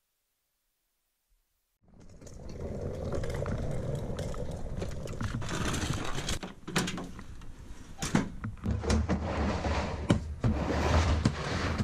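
Hunting gear being handled at a pickup truck's bed: rustling and bumping handling noise with several sharp knocks and clicks, starting after about two seconds of silence.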